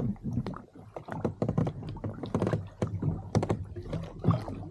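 Irregular knocks and clicks of gear being handled against a fishing kayak's hull.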